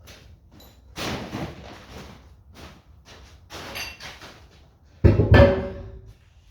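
Metal clattering and knocking as a heavy tractor part is handled, then about five seconds in a loud heavy metal clank with a brief ring as it is set down.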